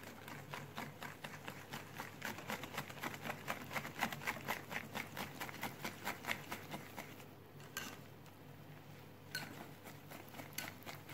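Wire whisk beating chocolate cake batter in a glass bowl by hand. The strokes are quick and regular, about five a second, and thin out to a few scattered ones after about seven seconds.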